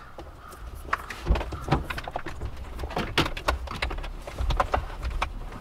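Irregular clicks, taps and knocks from wires and plastic trim being handled and pushed through under a car's dashboard, with a few heavier knocks against the interior.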